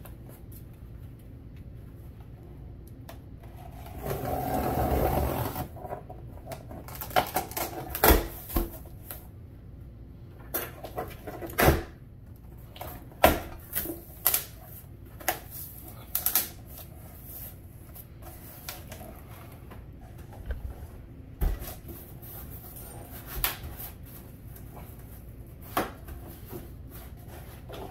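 A cardboard shipping box being opened and handled: cardboard flaps folded back and packing rustled, with many short knocks and clicks and one longer rasping noise about four seconds in.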